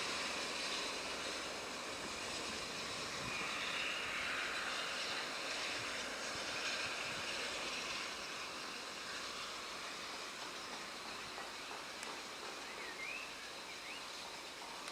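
Steady outdoor rushing noise beside a railway line, slowly fading, with a few faint short chirps near the end.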